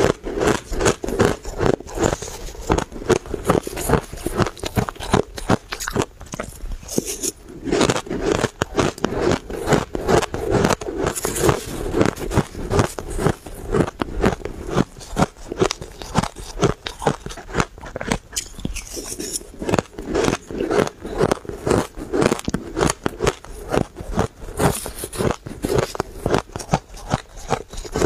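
Close-miked crunching and chewing of a mouthful of blended shaved ice, a steady run of crisp crunches about three a second.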